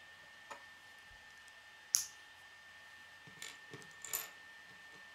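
Plastic K'nex pieces clicking together as a rod is pushed into snowflake connectors: a small click, a sharp snap about two seconds in, then a cluster of smaller clicks and taps near the end.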